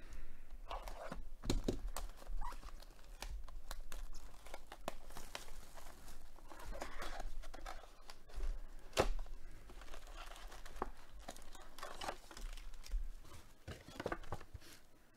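Sealed trading-card hobby box being unwrapped and opened by hand: plastic wrap tearing and crinkling, cardboard flaps moving, and foil card packs rustling as they are pulled out, with many sharp crackles.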